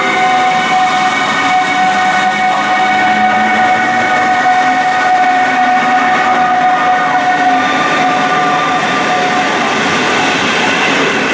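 PKP Intercity EU160 (Newag Griffin) electric locomotive and its passenger coaches rolling slowly past along the platform, a steady rumble with a high, even whine over it that fades out about nine to ten seconds in.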